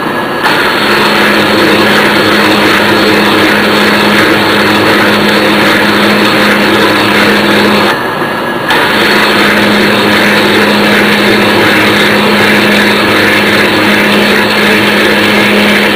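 Vertical milling machine driving a hole saw through a gauge panel: a steady, loud cutting and spindle noise with a hum underneath. It drops off briefly about eight seconds in, then picks up again.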